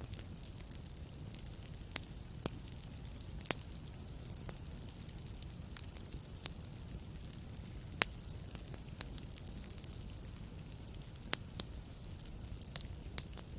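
Wood fire crackling in a fireplace: irregular sharp pops and snaps over a steady low rumble and soft hiss.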